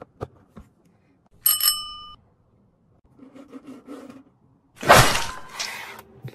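Plastic cubes clicking, then a bright bell-like ding about a second and a half in. Next comes a soft rolling rumble of a toy skateboard's wheels on the table. About five seconds in, a loud rushing whoosh sound effect runs for over a second.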